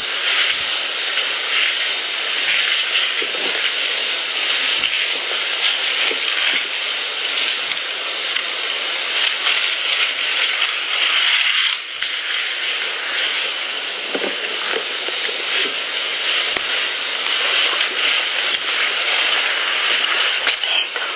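Steady loud hiss of a heavily amplified outdoor field recording played back, with faint soft taps scattered through it. The hiss dips briefly about twelve seconds in, where one clip gives way to the next.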